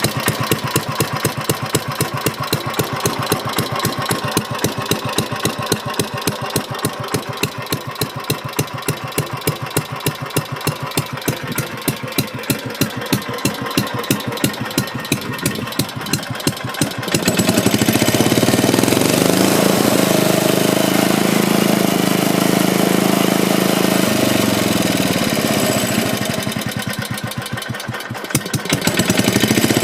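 Soviet UD-1 single-cylinder engine running slowly with separate, evenly spaced firing beats, then revved up sharply about two-thirds of the way in. It holds at speed, drops back briefly, then picks up again near the end.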